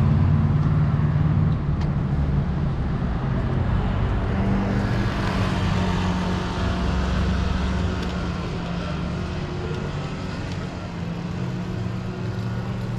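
Urban road traffic: a motor vehicle engine running steadily close by, a low hum over general traffic noise.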